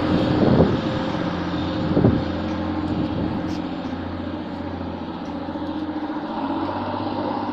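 Class 185 diesel multiple unit's Cummins QSK19 engine working hard as the train pulls away from the platform: a steady, loud diesel drone that eases slightly as the unit moves off.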